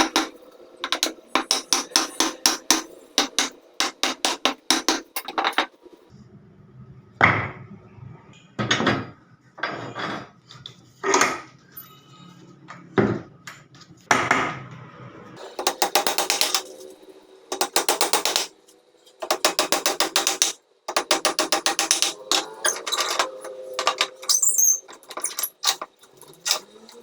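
Hand tool at work: quick runs of evenly spaced mechanical clicks, with a few separate knocks in the middle.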